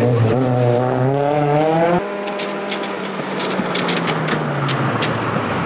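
Reynard Formula Opel Lotus single-seater's engine accelerating hard, its pitch rising. About two seconds in the sound cuts to the engine at a lower level and steadier pitch, with a run of sharp clicks.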